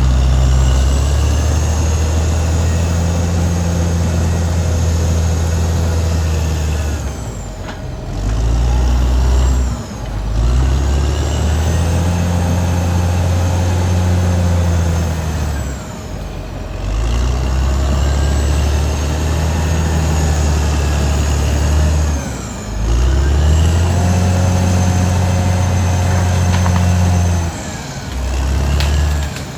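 Caterpillar D6R XL bulldozer's diesel engine working hard. It runs steadily for several seconds at a time, then drops off briefly and builds back up, about five times, with a steady high whine over it.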